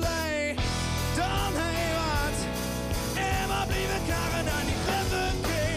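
Live rock band playing: a man sings the lead over electric guitar, bass guitar and drums.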